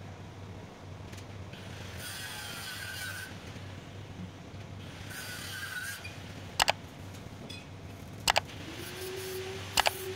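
Workshop tool handling: two spells of scraping or rubbing, then three sharp clicks about a second and a half apart, and a steady low tone that comes in near the end over a constant hum.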